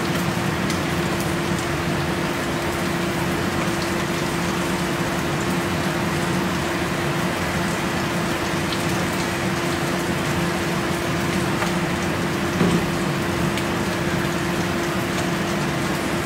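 Kitchen range hood fan running steadily: an even hiss with a constant hum under it.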